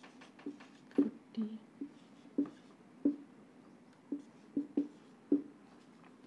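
Marker pen writing on a whiteboard: about a dozen short taps and strokes at irregular intervals as numbers and commas are written, each tap knocking the board.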